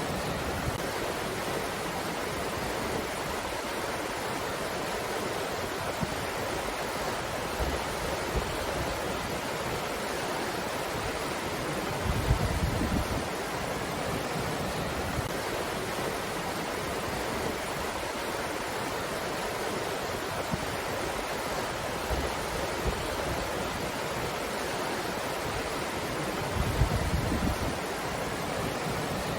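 Steady breeze making an even, rushing hiss, with two brief low rumbles of wind buffeting the microphone about twelve seconds in and near the end.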